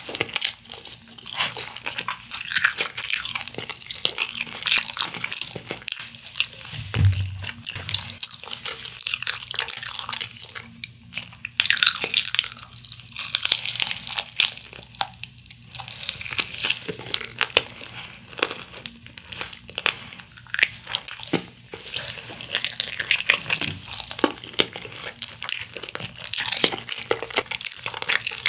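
Crunching bites and chewing of crispy, honey-glazed fried chicken (Kyochon Honey Combo wings and drumsticks), a steady run of irregular crackly crunches.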